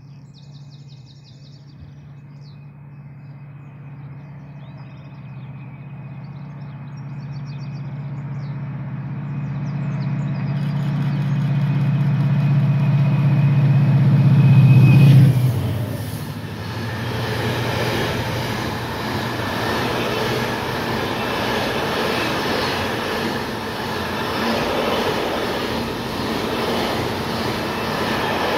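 A container freight train hauled by a Class 68 and a Class 88 locomotive approaches with a low engine drone that grows steadily louder, passes about halfway through with a sudden drop in pitch and level, then its container wagons rattle and clatter past on the rails. Faint birdsong is heard early on.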